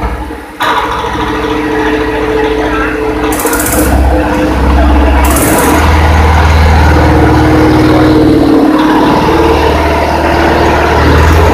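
Single-cylinder diesel engine driving a water pump, running with a loud mechanical clatter. The sound dips for the first half second, then comes back up sharply, and two short hisses break in a few seconds in.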